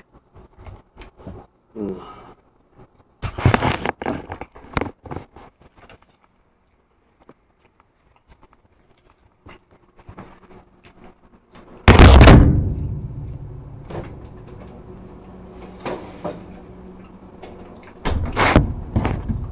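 Knocks and bumps of things being handled and moved, with one heavy thump about twelve seconds in that dies away slowly, and another rattle of knocks near the end.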